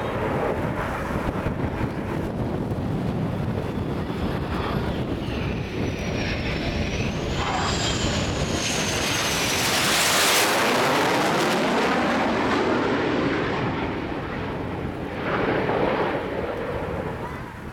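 McDonnell Douglas F/A-18 Hornet jet engines, Blue Angels aircraft on approach to land. A steady jet roar carries a high turbine whine that rises and falls, swells to its loudest about ten seconds in as a jet passes with a sweeping sound falling in pitch, then swells again near the end.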